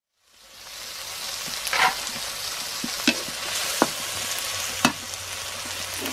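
Long beans and onion sizzling in a hot wok while being stir-fried with a wooden spatula. The sizzle fades in just after the start, with four sharp knocks of the spatula against the wok.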